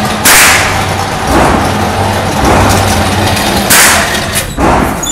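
Handgun shots from neighbouring lanes, each echoing off the concrete of an indoor range: two loud cracks, about a third of a second in and near the end, with several softer ones between. Under them runs a steady low hum from the motorised target carrier bringing the paper target back, which stops a little past halfway.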